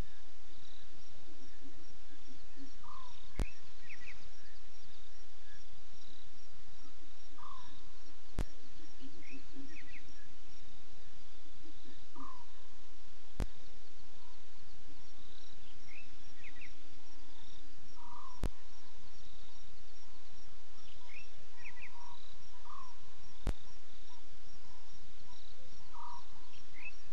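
Night ambience in the African bush: a steady insect trill under short animal calls that repeat every few seconds, some as quick triple chirps. A sharp click comes about every five seconds.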